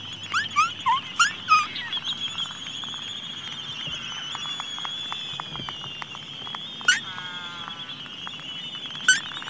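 Laysan albatross chick begging for food: a quick series of short squeaky peeps, about three a second, for the first second and a half and again near the end. A steady high-pitched whine runs underneath, with light ticks in between.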